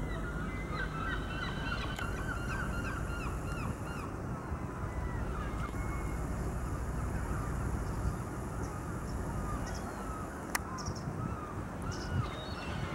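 Gulls calling, a quick run of short yelping notes in the first few seconds, then scattered calls, over a steady low rumble.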